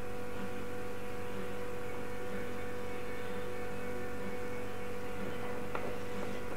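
Steady electrical hum made of several fixed tones over a low drone, with a faint click near the end.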